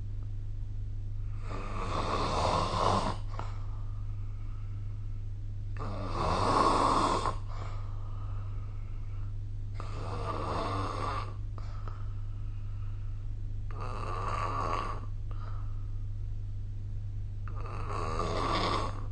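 A person snoring: five rasping snores about four seconds apart, each lasting a second or two, over a steady low hum.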